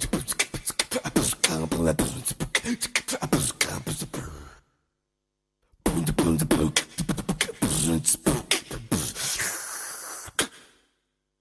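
Beatboxing: rapid rhythmic mouth clicks and pops mixed with short hummed vocal tones, in two runs of about four to five seconds each, with a second of silence between them.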